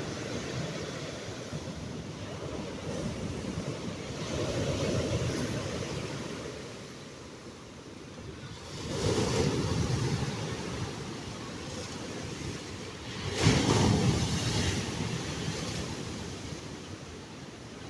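Stormy sea: waves breaking on the shore in a steady roar, swelling in three big surges, the loudest about two-thirds of the way through. Wind is buffeting the microphone.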